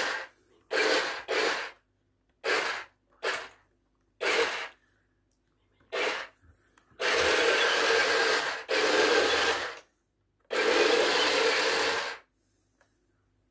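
1/16-scale RC Tiger I tank's electric drive motors, gearboxes and tracks whirring in short spurts of driving, then in three longer runs of a second or two each, with silence between.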